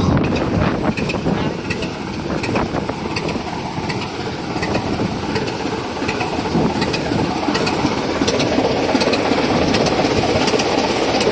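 Diesel locomotive engine idling with a steady rumble, with scattered short clicks and knocks over it.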